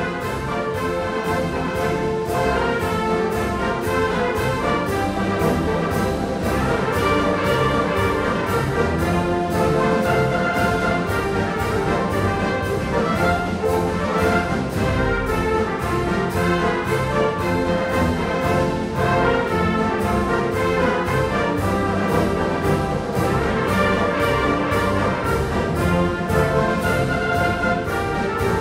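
A student concert band of woodwinds, saxophones, brass and tubas playing a piece live.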